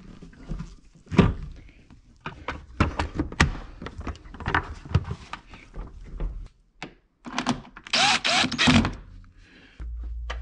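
Knocks, thunks and clicks from a Vespa GTS 300's side body panel being pushed and fitted into place by hand, with a louder scraping rasp of the panel sliding about eight seconds in. A steady low hum starts just before the end.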